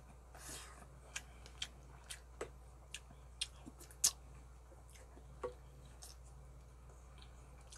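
Close-up eating sounds: a person chewing soft braised pork ribs and rice, with irregular sharp mouth smacks and clicks and the wooden spoon knocking against a plastic rice container. A low steady hum runs underneath.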